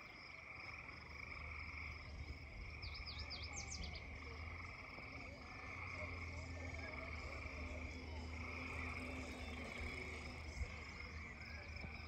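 Chorus of many frogs calling at once, steady and overlapping. About three seconds in, a bird gives a short run of quick high notes.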